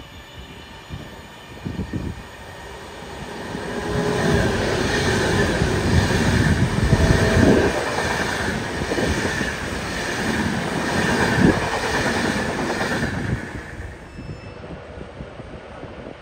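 A train passing on the main line: it builds up, runs loud for about ten seconds with a regular rattling beat of the wheels about once a second, then drops away near the end.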